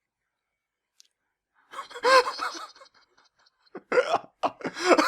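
Silence, then high-pitched voice sounds about two seconds in, followed near the end by laughter in quick short bursts.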